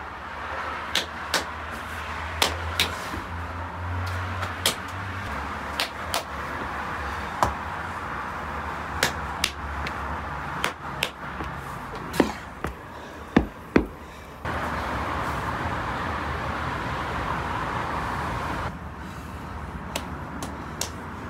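Sharp slaps and knocks, about one a second, as raw samsas are pressed by hand onto the inner clay wall of a tandoor, over a steady background hiss. About fourteen seconds in, the hiss turns louder and the knocks mostly stop.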